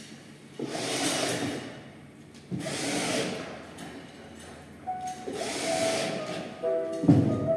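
Handheld electric power tool running in three short bursts of about a second each. Music with held tones comes in about five seconds in and grows loud near the end.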